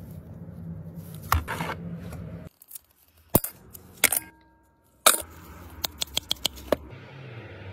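Mussel shells clicking and clattering as they are picked over and dropped into enamel bowls, with a few separate sharp clicks and then a quick run of about seven short clicks. Before that there is a low steady hum with a couple of knocks.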